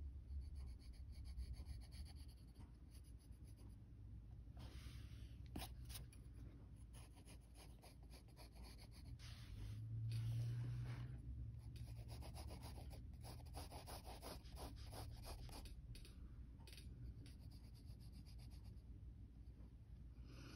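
Faint scratching of a graphite pencil on paper, in many short strokes with brief pauses between them, as a sketch is drawn.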